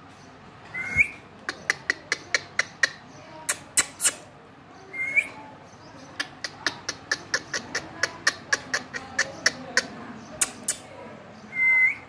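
Indian ringneck parrot making a long run of sharp clicks, two to four a second, broken three times by a short whistle that rises at the end.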